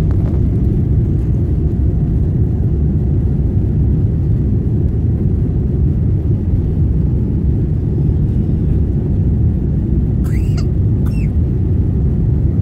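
Steady loud rumble inside an airliner cabin during the takeoff roll: jet engines at takeoff power and the wheels running over the runway. Two brief high-pitched sounds come about ten seconds in.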